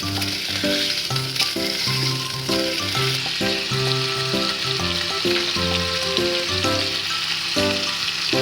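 Food sizzling and frying in a pan with a steady hiss, under background music with a regular pattern of notes and bass.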